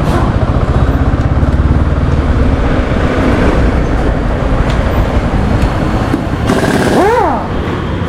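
Motorcycle and road traffic noise: a steady, loud low rumble. Near the end there is a short pitched sound that rises and falls.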